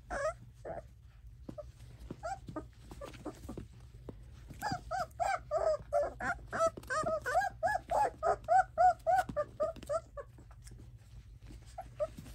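22-day-old Bohemian Shepherd puppies whimpering and yelping as they play-fight. A few scattered short calls come at first, then a quick run of short rise-and-fall yelps, about four a second, from about the middle, before it thins out near the end.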